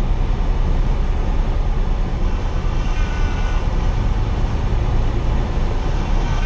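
A Cessna 172's piston engine and propeller running steadily, heard from inside the cockpit as the aircraft rolls along the runway.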